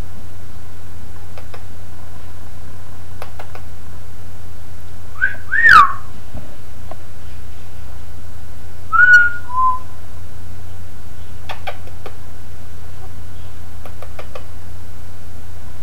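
Indian ringneck parakeet giving two short whistles: a quick sweep up and down about five seconds in, then a two-note falling whistle a few seconds later. A few faint clicks, over a steady low hum and hiss.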